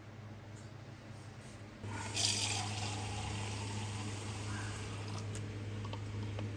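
Water starts running about two seconds in, opening with a louder splashing rush and then settling into a steady flow. A steady low hum starts at the same moment and continues with it.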